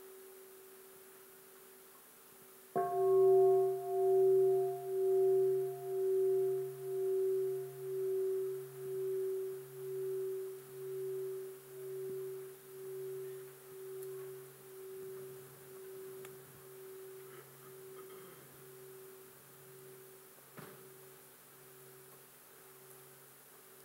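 A bowl-shaped meditation bell struck once about three seconds in, its tone ringing with a slow, even pulsing about once a second and fading away over some fifteen seconds. A faint ring of the same bell is still sounding at the start. In Plum Village practice the bell is invited to call for a pause of mindful breathing.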